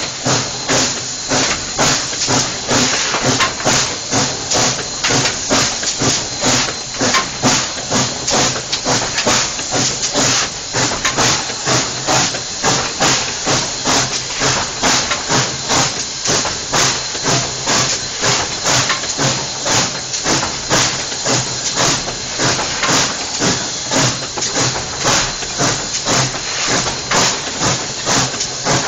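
White Pass & Yukon No. 70 steam locomotive working hard, its exhaust beating in an even, regular rhythm over a steady steam hiss. It is labouring up a 5% grade on wet rail without sand, close to stalling.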